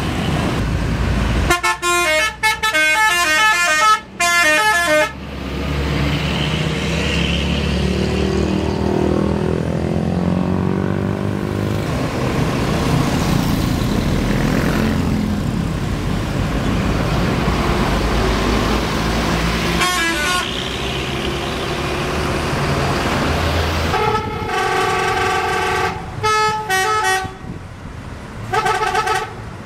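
Telolet bus horn, a multi-tone musical air horn, playing a quick stepping melody for a few seconds near the start. A bus engine rumbles past in between, and near the end the horn plays again in short, stuttering phrases.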